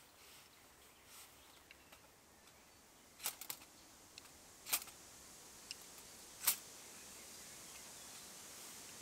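Sharp metallic clicks and clinks as hands work inside a small steel folding stove box: a quick cluster of three a few seconds in, then two single louder clicks, the loudest about two-thirds of the way through. A soft steady hiss grows underneath from about halfway.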